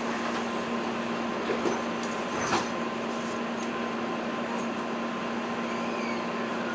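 Steady hum inside a standing electric train car: the air conditioning and onboard equipment running, with one constant low tone and a fainter higher one. A few light knocks come about one and a half to two and a half seconds in.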